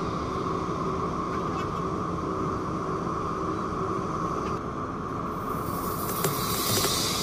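Electric metro train running: a steady rumble with a hum, and a hiss that grows louder about five seconds in.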